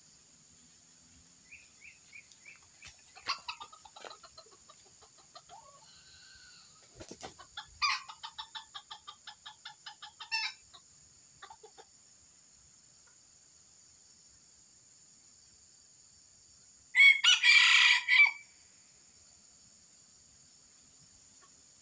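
Red junglefowl rooster clucking in short calls and one quick, fading run of repeated calls, then, after a pause, crowing once loudly. A steady high insect buzz runs underneath.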